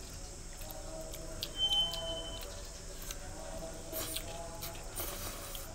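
Rice noodles being slurped and chewed, with light clicks of chopsticks against ceramic bowls; the loudest slurp comes near the end. A brief steady high beep sounds about one and a half seconds in.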